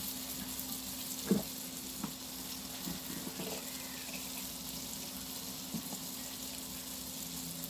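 Breaded chicken cutlets frying in oil with a steady sizzle, over a low steady hum. A few light knocks come about a second and two seconds in.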